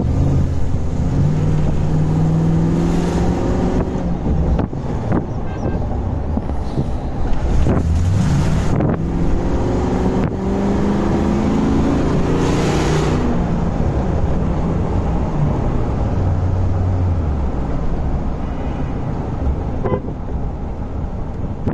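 Corvette LS3 6.2-litre V8 swapped into a Land Rover Defender, heard from inside the cabin while driving: the engine note holds steady, then climbs in pitch several times as it accelerates and changes gear. Short rushes of air noise come in now and then, the strongest about twelve seconds in.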